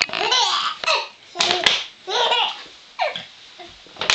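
Baby laughing in short bursts, taking turns with the sharp crinkling crackle of a plastic Coke bottle being squeezed.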